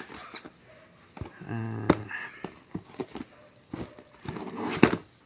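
Cardboard boxes being handled inside an opened shipping carton: scattered knocks, taps and rustles as product boxes are moved and pulled out, the sharpest knock about five seconds in. A short hum or murmured syllable comes about a second and a half in.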